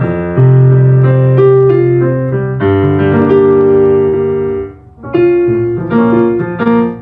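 Piano played by hand: a slow progression of held chords with a simple melody over them, the repeating four-chord loop of the song's instrumental track. The playing breaks off briefly about five seconds in, then picks up again.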